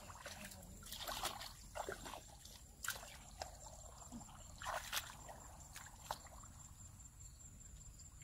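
Wading through shallow muddy water, with small irregular sloshes and splashes.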